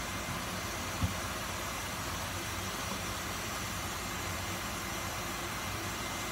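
Steady, even background hiss with one soft knock about a second in.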